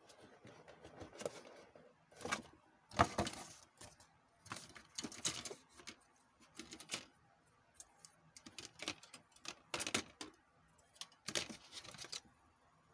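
Plastic model-kit runners being handled in their cardboard box: irregular clicks, clacks and short rustles as the plastic sprues knock together and against the box.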